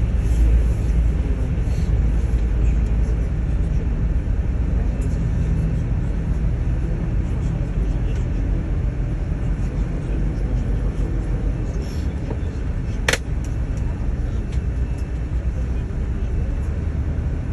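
Airport apron bus driving, heard from inside the cabin: a steady low engine-and-road rumble, with one sharp click about thirteen seconds in.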